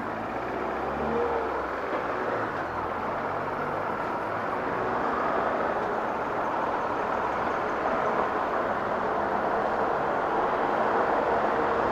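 Honda XRE 300's single-cylinder engine running at low speed on a slow ride over cobblestones, mixed with a steady rush of wind and road noise that grows a little louder toward the end.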